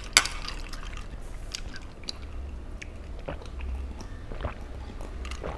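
Two glass beer mugs clinked together in a toast, a single sharp clink just after the start, then soft sipping and swallowing with a few faint ticks of ice in the glasses.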